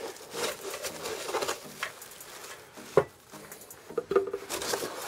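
Unboxing handling: a heavy car-audio midrange speaker is lifted out of its styrofoam packing insert in a cardboard box, with scattered scrapes and rustles of foam and cardboard and one sharp knock about three seconds in.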